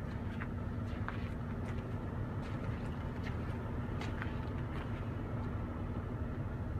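Heavy diesel engine idling steadily: a low, even rumble with a constant hum.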